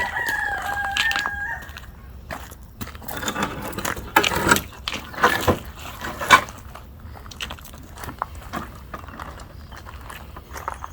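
A rooster crows once, a call of about a second and a half at the start. Scattered knocks and clatter follow, with one sharp knock about six seconds in.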